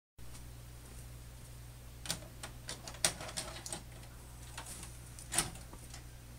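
VCR's tape mechanism clicking and clunking as a VHS cassette loads and play engages, a dozen or so sharp clicks from about two seconds in, over a steady low electrical hum.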